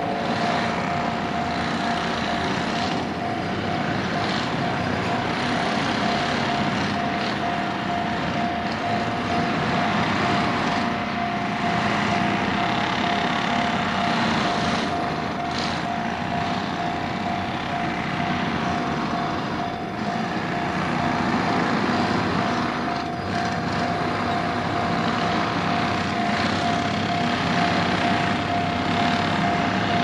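Japanese railway level-crossing alarm ringing its single repeated electronic tone, over a continuous rushing noise.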